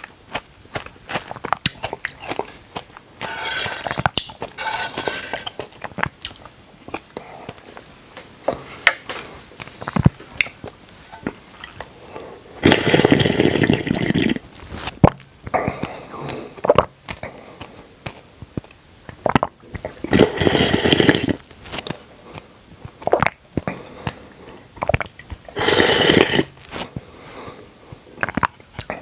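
Close-miked mouth sounds of eating soft dragon fruit in a creamy liquid: wet smacking and clicking, with three long, loud slurps, the first about halfway through as the plate is tipped up to drink from its edge, the others later on.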